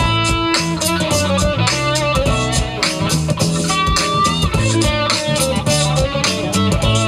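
Band music with electric guitar over bass and a steady drum-kit beat.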